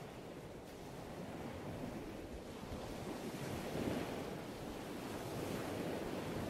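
Ocean waves washing in a low, steady rush that swells and eases every second or two.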